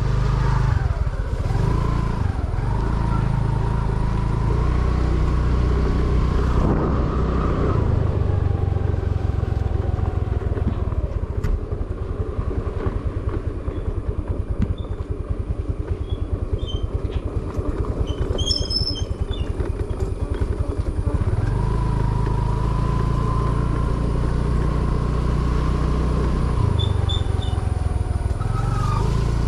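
A motor vehicle engine running continuously, with a whine that rises and falls.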